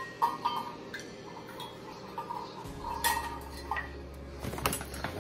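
Metal measuring cups clinking and knocking as they are picked up and handled, a few scattered light clinks with a quicker cluster near the end. A low steady hum starts about halfway through.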